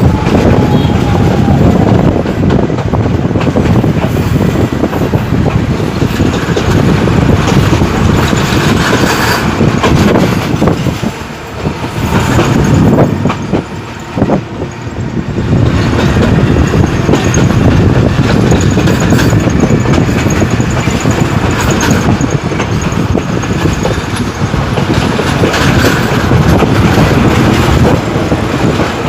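Passenger express train rumbling along the track as it arrives at the station, a loud, steady rolling noise that briefly dips twice in the middle.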